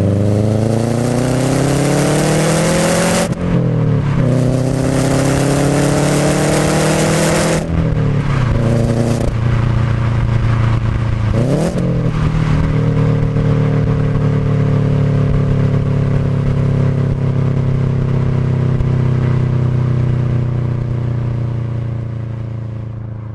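Subaru WRX's turbocharged flat-four engine accelerating hard, rising in pitch through two gears with a shift between them, then a brief rev about twelve seconds in before settling into a steady cruise that slowly fades near the end.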